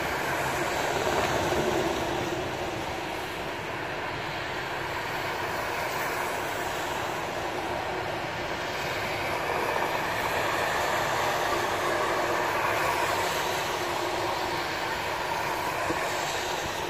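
Steady wash of rain and street traffic: cars driving on a rain-soaked road, their tyres hissing, swelling gently as cars pass.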